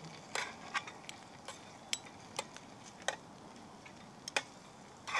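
Sausages and onions frying gently in a pan with a low, steady sizzle, over which about a dozen sharp, irregular clicks and taps sound.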